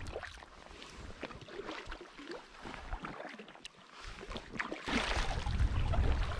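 Packraft paddle strokes on calm river water: small splashes, drips and light knocks. About five seconds in, a louder, deep rushing of faster-flowing current and wind on the microphone takes over.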